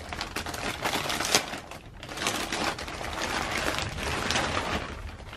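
Plastic poly mailer bag crinkling and rustling with irregular crackles as hands open it and pull out what is inside.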